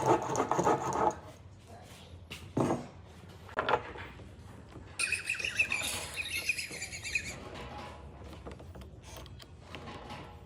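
A small bird twittering rapidly for about two seconds, a little after two short knocks.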